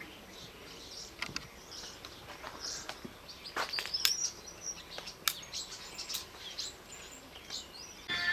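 Small birds chirping in short, scattered, irregular calls over faint outdoor background noise.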